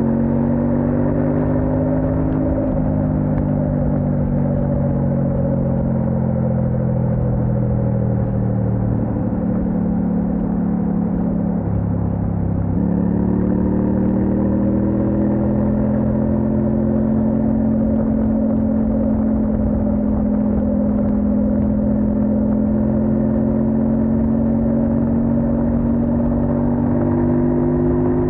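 Kove 800X Pro motorcycle's parallel-twin engine running under way, heard from the rider's position. The engine note sinks slowly and then climbs again, with abrupt steps in pitch about 3 s and 12 s in.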